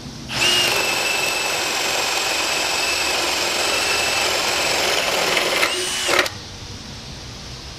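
JCB brushless cordless drill driver boring a 3/4-inch spade bit into a 2x4: a steady high motor whine over the chatter of the bit cutting wood. It holds one pitch for about five seconds without bogging down, stops briefly, runs in one short second burst and cuts off a little after six seconds in.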